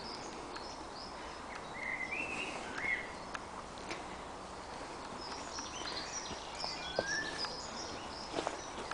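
Several woodland songbirds singing at once, with many short high chirping phrases and a few lower whistled ones, over a steady outdoor hiss. Faint footsteps on the path now and then.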